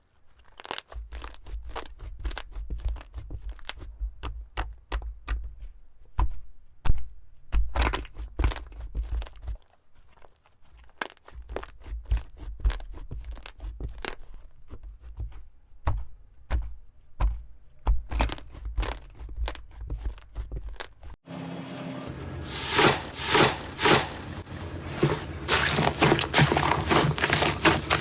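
Slime being squeezed and pressed, giving a fast run of crackling clicks and crunches over low handling thuds. About 21 seconds in the sound cuts abruptly to another clip with denser, louder crackling over a steady low hum.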